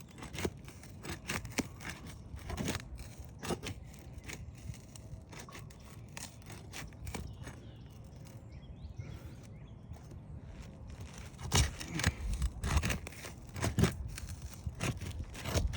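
A metal roof snake being worked under asphalt shingle tabs, scraping and tearing them loose from their adhesive seal strip. Short scattered scrapes at first, a quieter stretch in the middle, then louder repeated scraping strokes near the end.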